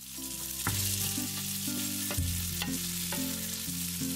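Spaghetti and shrimp sizzling in butter in a nonstick frying pan while being stirred and tossed with a wooden spoon, with a few sharp knocks of the spoon against the pan.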